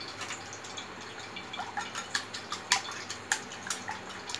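A raw egg being beaten with a utensil in a glass bowl: irregular clinks of the utensil against the glass with a wet slapping of the egg, coming faster and louder about a third of the way in.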